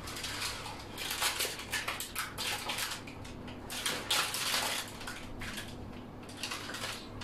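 Silicone spatula scraping over pizza dough on a parchment-lined baking tray: a series of irregular soft scraping and rustling strokes, thickest in the middle and thinning out near the end.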